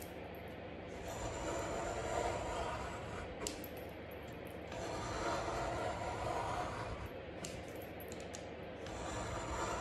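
Snap-off utility knife blade drawn through cardstock, cutting slits: a few long scraping strokes of a second or two each, with small clicks in the pauses between them.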